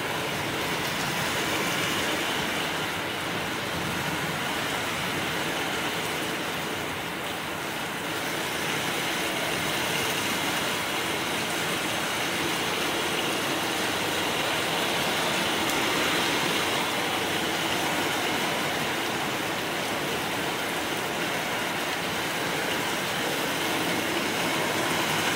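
Heavy rain pouring down steadily, a continuous even hiss that neither stops nor changes much.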